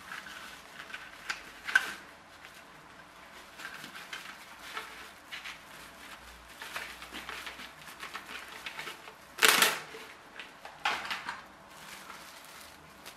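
Plastic cling film rustling and crinkling as it is unrolled and handled, in scattered crackles, with the loudest burst about nine and a half seconds in and another a second later.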